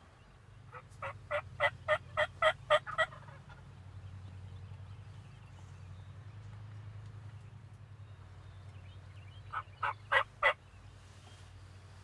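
Turkey yelping: a run of about nine evenly spaced yelps, roughly three a second, getting louder, about a second in, and a shorter run of four yelps near the end.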